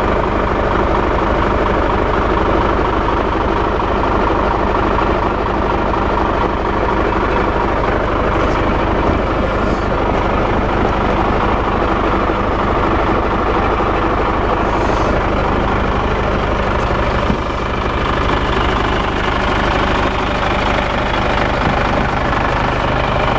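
Nissan Diesel heavy truck tractor's diesel engine idling steadily, with a brief dip and a slight change in its note about seventeen seconds in.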